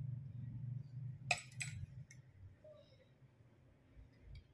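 Steel nail tools clinking: two sharp metallic clicks close together about a second in, as the nail nippers are handled, over a low handling rumble.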